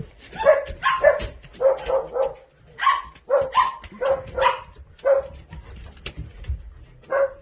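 A dog vocalising in a rapid series of short, pitched barks, roughly two a second, while being petted.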